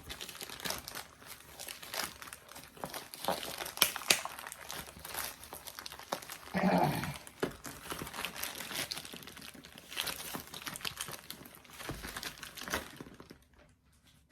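Packaging being handled and unwrapped, with dense crinkling and crackling and a brief vocal sound about halfway through. The crinkling dies away about a second before the end.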